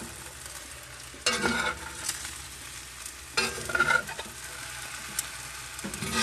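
Yellow peppers sizzling in a hot cast iron pan while a metal utensil stirs them, scraping and clattering against the pan in three short bursts.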